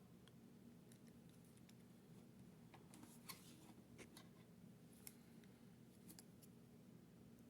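Faint, scattered clicks and light metallic scrapes of a lock pick and tension wrench working in the keyway of a Master Magnum laminated four-pin padlock, over a low steady hum.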